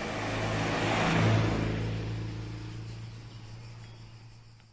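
A motor vehicle engine running steadily, growing louder over the first second and a half and then fading away.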